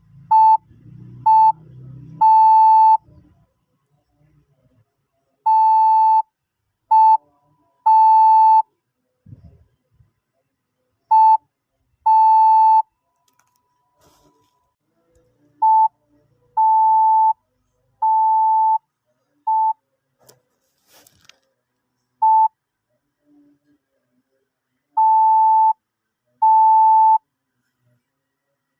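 Morse code sounded as a single steady electronic beep, keyed slowly in short dots and long dashes. The beeps come in small groups of one to four, one letter at a time, with pauses of a second or more between groups.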